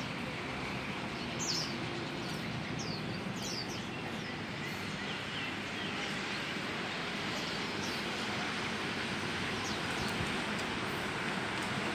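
A few short, high, downward-sweeping chirps from a wild sikatan londo flycatcher, mostly in the first few seconds, over a steady rushing background noise.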